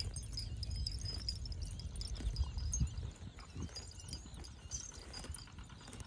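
Cow grazing, tearing off mouthfuls of grass in a run of irregular crisp snaps and crunches. Small birds chirp high in the background over a low rumble of wind on the microphone, which is heaviest in the first half.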